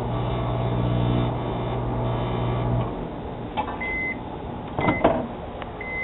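Microwave oven running with a steady electrical hum, which stops about three seconds in; short high beeps follow, and a loud clatter of clicks near five seconds as the door latch is opened.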